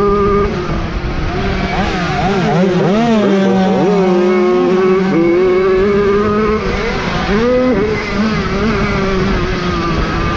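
Several Jawa 50 motorcycles' small two-stroke engines running hard at high revs. One engine holds a steady, high pitch while others rev up and down over it between about two and five seconds in, and again around eight seconds.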